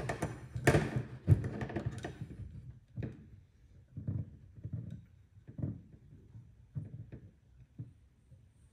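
Small metal measuring tools handled on a bench: an outside micrometer being closed over a telescoping gauge. A few sharp knocks and clicks in the first two seconds, then soft, separate taps about once a second.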